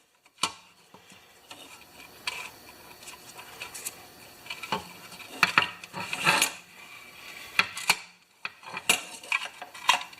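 Irregular metallic clicks and clatter of a lawn mower's recoil starter as its pulley is turned and handled while it is wound against the spring, with a louder burst of rattling in the middle and again near the end.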